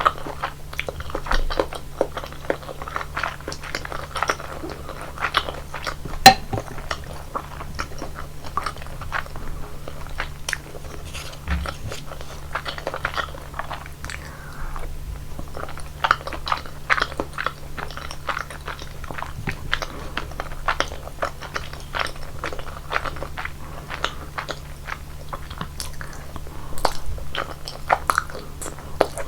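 Close-miked chewing and biting of rosé tteokbokki: a steady run of sticky, wet mouth clicks and squishes, with some crunchy bites. There is one sharp click about six seconds in, and a faint low hum throughout.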